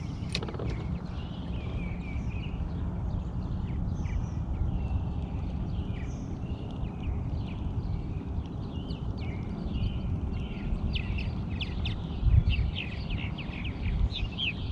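Several songbirds chirping and singing over a steady low rumble, with a brief low thump near the end.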